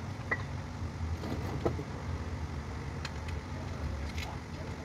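Steady low hum of a car repair workshop, with a few faint clicks scattered through it.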